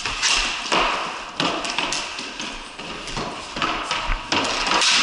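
Ball hockey sticks and ball knocking and scraping on a concrete floor, a series of irregular sharp clacks with shoes scuffing between them.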